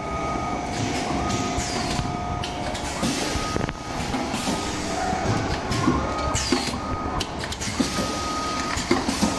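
Sauce packing machine running: a steady mechanical clatter with repeated sharp clicks as it cycles, and a high beeping tone that switches on and off about every second or two.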